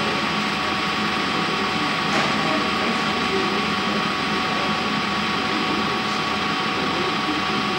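Metal-turning lathe running steadily as its cutting tool turns down a metal part under a stream of coolant: an even mechanical noise with a thin, constant whine.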